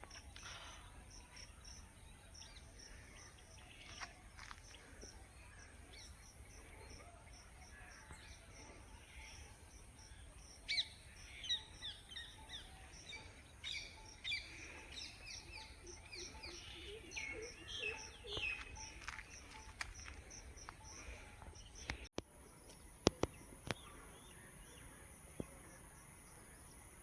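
A chorus of small birds chirping, with one bird repeating short high notes in a fast, even series and a busier flurry of overlapping chirps in the middle. A few sharp clicks come near the end.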